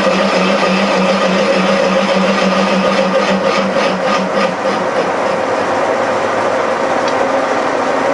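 Horizontal milling machine running steadily, its spindle turning a boring bar that cuts inside the bore of a lathe drive mount. About halfway through there is a short run of quick pulses, about five a second, and then the lower cutting hum drops away, leaving the machine's steady whine.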